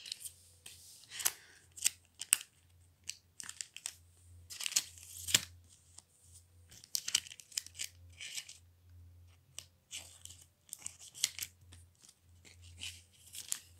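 Football trading cards being slid into the clear plastic pocket pages of a collector's binder: irregular rustling and crinkling of the plastic sleeves, with sharp little snaps as cards and pages are handled. A faint steady hum lies underneath.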